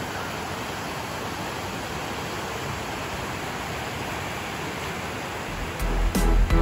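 Creek water rushing over rocks in a small cascade, a steady even hiss. Near the end, music with heavy bass hits comes in.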